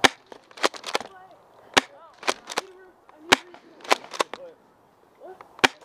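Sharp gunfire cracks from skirmish-game guns, about a dozen shots at irregular intervals, some in quick pairs, with faint distant shouting between them.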